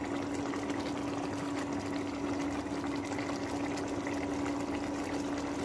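Wallago catfish curry bubbling at a boil in a pan, a steady liquid hiss and crackle, with a steady low hum underneath.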